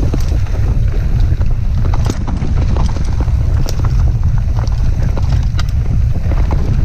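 Wind buffeting the microphone over the tyre rumble of a Polygon Siskiu mountain bike descending a dirt trail, with irregular rattles and knocks from the bike as it runs over bumps.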